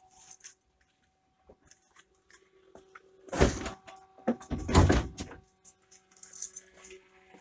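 Two loud thumps about a second apart, with scattered light clicks and rattles before and after them.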